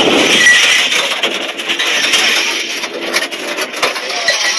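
Steel-hoop rollover simulator, a car shell mounted in a large steel ring, rolling over concrete, with rattling and scraping and a run of small clicks.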